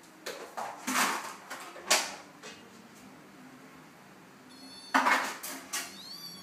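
A few sharp noisy bursts in the first two seconds and two more about five seconds in. Near the end comes a high, thin kitten mew that bends down in pitch.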